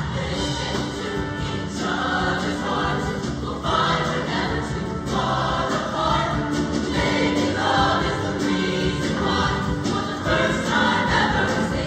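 Show choir singing as a full ensemble over instrumental accompaniment.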